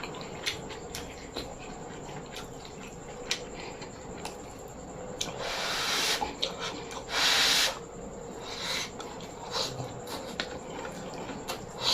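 Close-miked eating sounds: chewing with small wet mouth clicks, and two louder rushes of noise about five and seven seconds in, the second the loudest.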